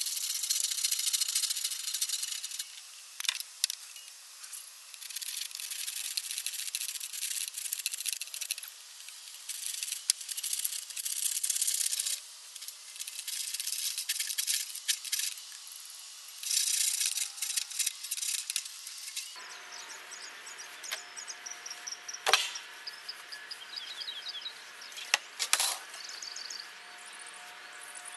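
Hand saw cutting through PVC pipe: repeated bursts of sawing strokes with short pauses between them. About two-thirds of the way through the sawing stops, and two sharp knocks follow near the end.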